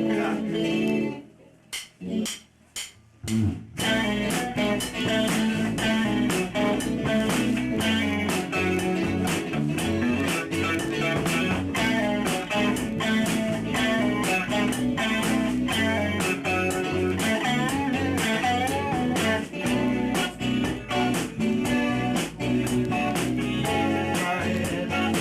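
Live rock band rehearsing, with electric guitar and bass. After a brief bit of guitar and a few short knocks, the whole band starts up about four seconds in and plays a steady bluesy number.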